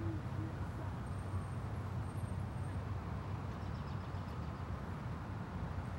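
Outdoor ambience of an open park during a silent pause: a steady low rumble, with a couple of faint high-pitched tones about one and two seconds in.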